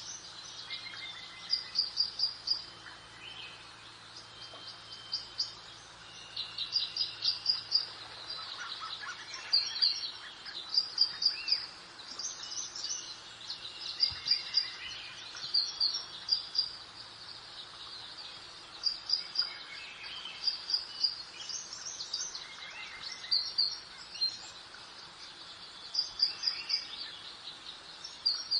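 Birdsong: several birds chirping in short runs of quick, high notes, repeated every second or two over a soft steady background hiss.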